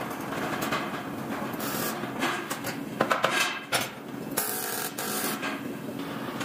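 Workshop noise from aluminium ladder production: metal parts clanking and clicking, sharpest about halfway through, over a steady factory din with two short bursts of hiss.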